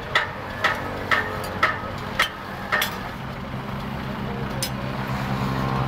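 Six ringing hammer blows, about two a second, on a leaf-spring steel axe head held on a steel anvil block. The blows stop about three seconds in, and the low hum of a vehicle engine grows slightly louder.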